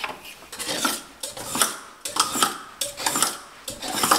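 Utility knife blade scraping old silicone caulk out of the joint between a tile backsplash and a countertop, in a series of short scraping strokes.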